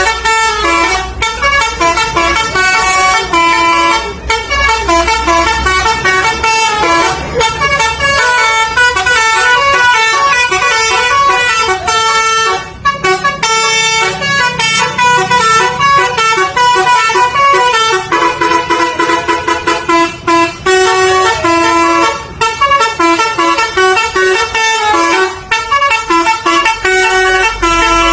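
Basuri telolet bus horn playing a fast melody of stepped notes, loud and continuous with only brief breaks between phrases.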